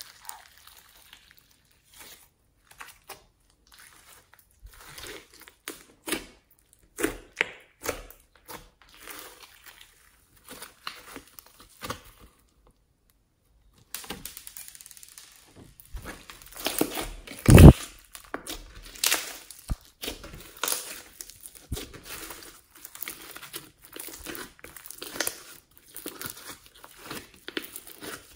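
Clear glitter slime mixed with floam beads being stretched and squeezed by hand: irregular crackles, clicks and squishes. One loud pop about two-thirds of the way through, after a brief silent gap.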